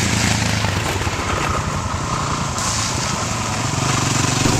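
Dual-sport motorcycle engine running steadily while riding, with a steady noisy rush over it.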